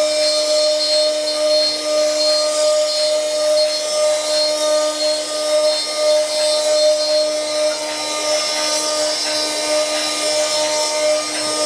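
Wood CNC lathe-engraving machine running, a steady motor whine over a constant hiss, typical of the spindle cutting wood.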